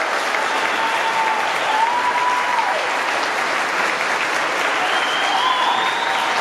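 Audience applauding steadily in a large gym, with a few long held calls rising above the clapping.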